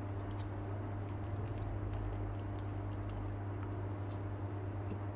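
Light, scattered clicks and taps of plastic model-kit parts being handled and pressed together as a Gunpla backpack is fitted to the body, over a steady low electrical hum.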